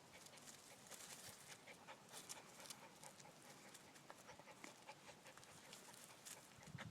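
Near silence: a dachshund's faint panting, with light rustling and small ticks as it works at a rock.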